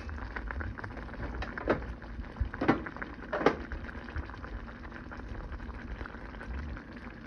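Creamy Alfredo sauce of milk and butter, with chicken and pasta, simmering in a pan: a steady fine bubbling crackle, with a few sharp clicks about two, three and three and a half seconds in.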